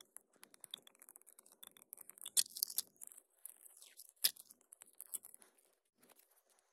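Foil seal being peeled off a Kinder Joy's plastic treat cup: faint crinkling with scattered small clicks of foil and plastic, and two sharper ticks about two and a half and four seconds in.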